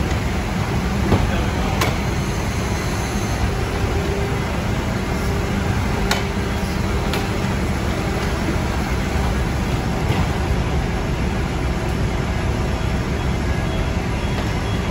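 Steady low mechanical drone of running machinery, with a few light clicks over it.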